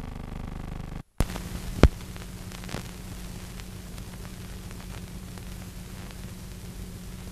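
Steady hiss and hum of an old film-transfer soundtrack, cut by a brief dropout about a second in and followed by a sharp pop.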